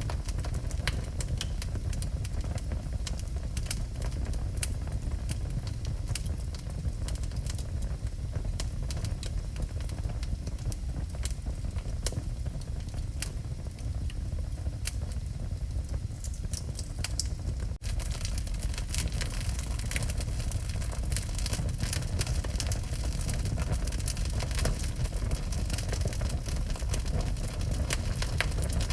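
Wood fire burning in a fireplace: a steady low rumble of the flames with frequent sharp crackles and pops from the burning logs. A little past halfway there is a momentary break, after which the crackling comes thicker.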